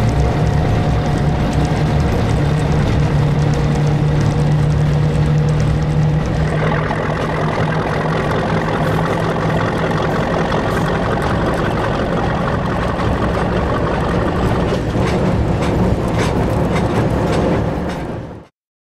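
Krauss-Maffei ML 440 C diesel-hydraulic locomotive's slow-running turbocharged MAN diesel engine chugging at low revs close to idle speed while pulling in second gear of the hydraulic transmission, heard from the cab. The engine note changes about six seconds in, some clicks and rattles come in later, and the sound cuts off suddenly just before the end.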